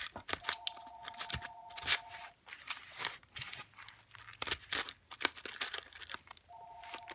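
Packaging being torn open and crumpled by hand as a lock is unwrapped, a run of tearing and crinkling crackles. A telephone rings in the background twice, each ring about two seconds long, once just after the start and again near the end.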